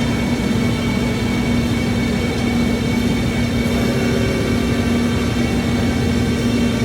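Metal-cutting shop machine running steadily: a constant hum over an even rushing noise, with no change in pitch or level.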